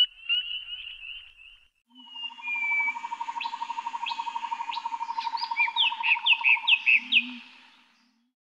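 Several birds singing: a high trill, then repeated short falling chirps over a rapid, evenly pulsing call, fading out near the end.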